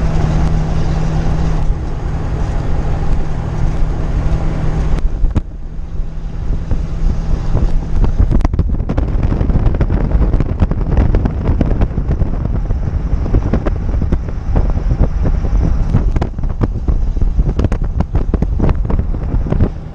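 Class A motorhome driving on the road, heard from inside the cab: a steady engine and road drone with wind noise. About five seconds in the steady hum drops away, and frequent small rattles and knocks run over the drone.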